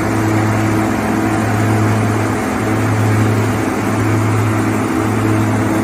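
Oxbo green bean harvester running steadily while harvesting: an even engine hum with a dense mechanical noise from the machine over it.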